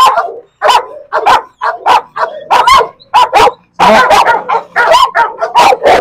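Pit bull barking aggressively at another dog, a rapid run of short, loud barks that come closest together about four seconds in.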